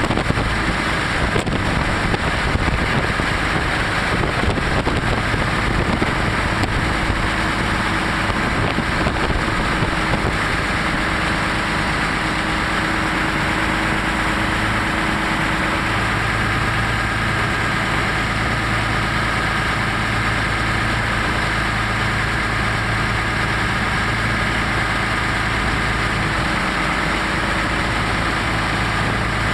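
PTS-M amphibious tracked transporter's engine running steadily while the vehicle swims afloat, heard from on board.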